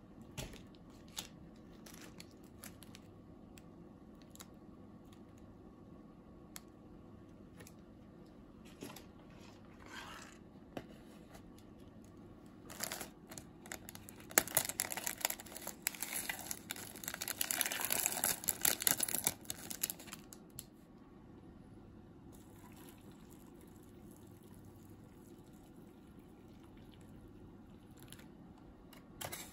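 A plastic instant-noodle topping sachet crinkling as it is torn open and its dried contents are shaken out over the cup. The crackling starts about twelve seconds in and goes on for about eight seconds, with a few light clicks of handling before it.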